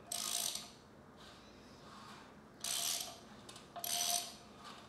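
Bare 5.3 LS V8 short block being turned over with the heads off: three short scraping, grinding strokes as the pistons move in rust-pitted cylinders.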